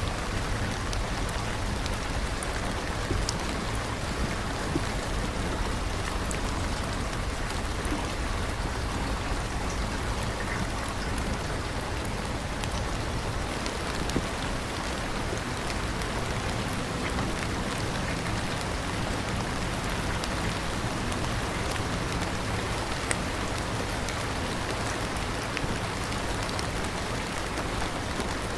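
Steady rain falling, a constant hiss with scattered small drop ticks.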